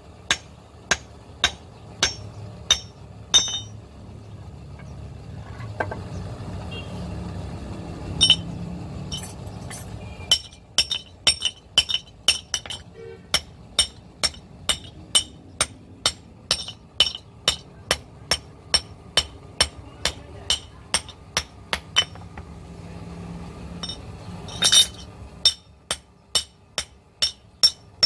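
Hand hammer striking an axe head on a small steel anvil block, with a sharp metallic ring to each blow. A few spaced blows, a lull of several seconds, then a fast, steady run of blows at about three a second.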